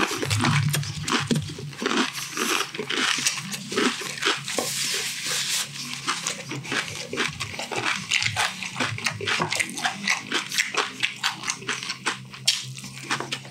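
Close-miked chewing of crispy deep-fried pork intestine (chicharon bulaklak): a dense, irregular run of crunches and small crackles with wet mouth sounds.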